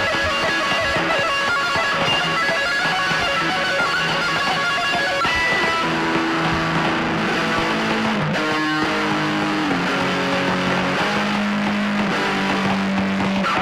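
Loud, dense noise/drone music: a distorted, guitar-like wall of sound with many held tones. About five seconds in, the texture shifts to sustained low notes that step from pitch to pitch.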